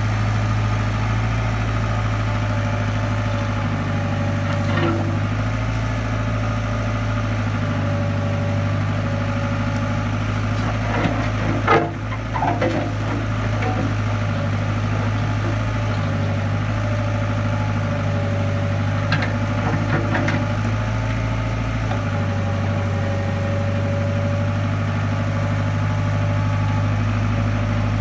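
International Harvester backhoe's diesel engine running steadily as the machine works, its note shifting several times under hydraulic load. A few clanks of the bucket against rocks, the loudest about twelve seconds in, with a couple more near twenty seconds.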